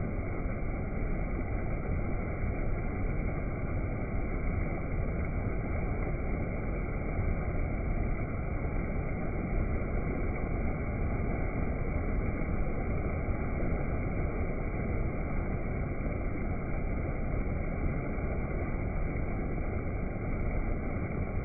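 Waterfall water rushing in a steady, unbroken roar that is heaviest in the low end.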